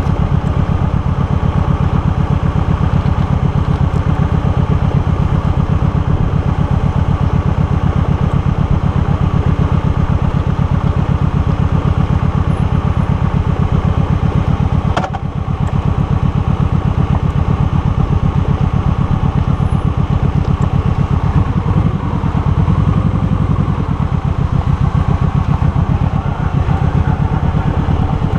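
Motorcycle engine running at low revs, a steady pulsing beat, as the bike idles and then rolls off slowly. A single brief click about halfway through.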